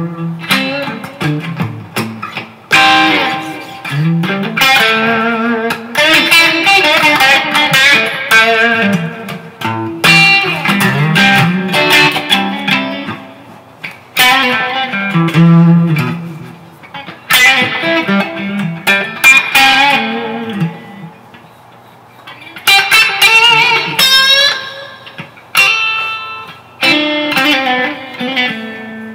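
Electric guitar being played: strummed chords and picked notes in phrases, with a brief lull about three-quarters of the way through.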